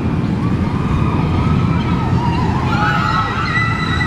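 Steel roller coaster running on its track: a steady low rumble with high, wavering wails over it that are loudest about three seconds in.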